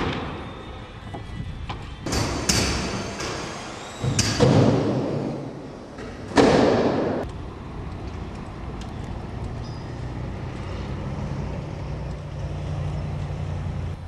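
A sharp knock, then a run of loud thuds, each with a rushing noisy tail, over the first seven seconds or so. After that comes a steady low hum.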